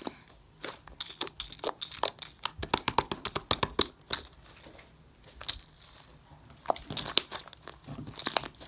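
Slime being played with: rapid crackling clicks and pops, densest about two to four seconds in and again near the end, with a quieter stretch in between.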